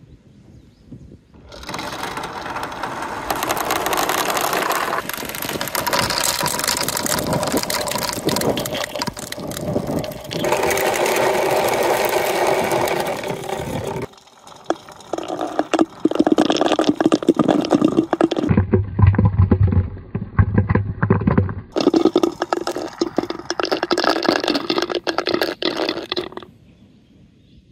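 Small coloured balls rolling and rattling down a plastic rain-gutter marble run and through its pipes. The rattle runs in several stretches that cut off and change abruptly, and dies away near the end.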